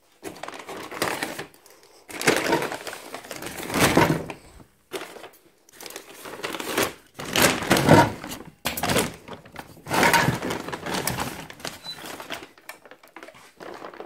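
A woven plastic sack rustling and crinkling in irregular bursts as a small mitre saw is pulled out of it.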